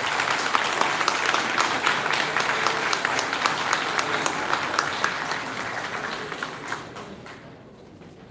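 Audience applauding as a choir song ends, a dense crowd of clapping that fades away about seven seconds in.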